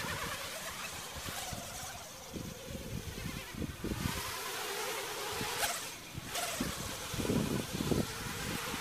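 Multirotor drone's propellers buzzing in flight, a steady wavering hum, with wind buffeting the microphone, gusts strongest near the end.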